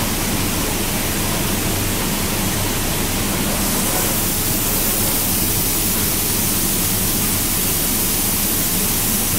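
Steady rushing noise of a robotic paint spray booth at work, with a low machine hum beneath; the hiss grows brighter about three and a half seconds in.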